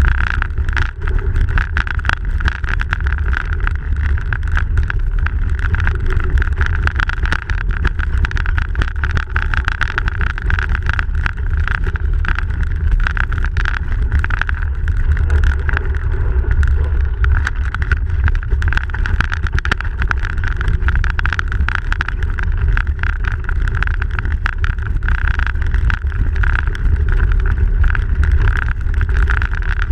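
Noise from a camera mounted on a bicycle ridden over snow: a loud, steady low rumble of wind on the microphone, with many small clicks and rattles from the bike and tyres throughout.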